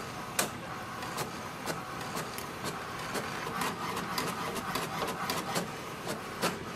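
HP DeskJet 4252e inkjet all-in-one printer running a copy job: the document feeder and print mechanism run with a steady whir and frequent sharp clicks as the page feeds through and prints.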